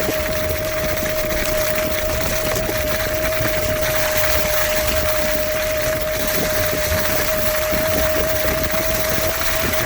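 Kaabo Wolf Warrior X GT electric scooter's dual hub motors whining at a steady, unchanging pitch while climbing a steep hill, over a constant rushing noise.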